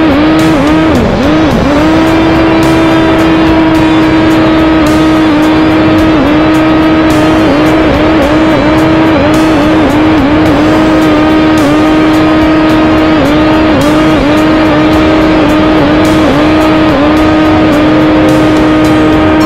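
Electric motor and propeller of a model aeroplane (Aerobird) running at full power, a loud steady high drone whose pitch dips briefly now and then.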